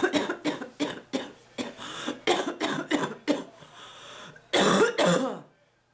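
A woman's coughing fit: a quick run of short coughs, then two longer, louder coughs near the end. It is a sick, chesty cough with the phlegm just starting to move.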